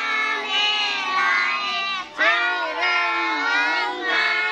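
A group of children chanting a Muslim prayer before eating in unison, many young voices together in a sing-song recitation, with a short breath pause about halfway.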